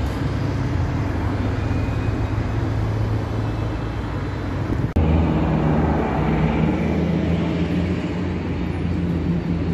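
Street traffic dominated by the low drone of a city bus engine and passing cars. The sound breaks off abruptly about five seconds in and picks up again as a steadier low engine hum of traffic.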